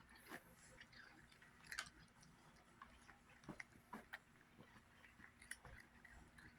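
Faint scattered crunches and clicks, like a cat chewing dry treats.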